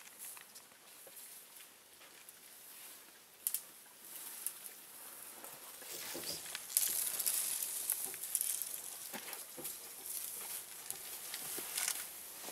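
Dry grass and brush rustling and crackling with many scattered sharp snaps as an African elephant moves and feeds in the grass close by, louder and denser in the second half.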